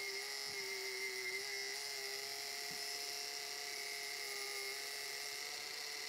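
Small Aldi benchtop bandsaw running with a steady whine while its blade cuts a circle out of a glued-up hardwood panel.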